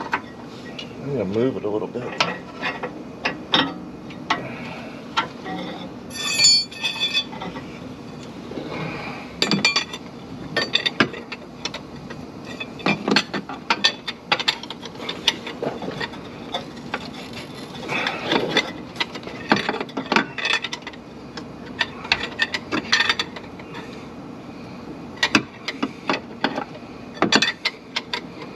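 Long ball-end hex key clinking and tapping against metal under the car as a bolt is worked up into the oil pan rail: irregular clicks and knocks, with a short ringing metallic rattle about six seconds in.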